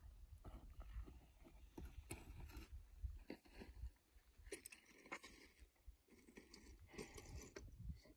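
Faint, irregular crunching footsteps on loose volcanic scree, with a low rumble of wind on the microphone over the first few seconds.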